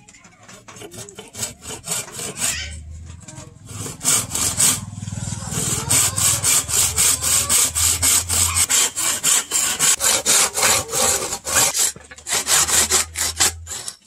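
Hand saw cutting through a wooden block in quick, even back-and-forth strokes, about four a second. The strokes grow louder about four seconds in.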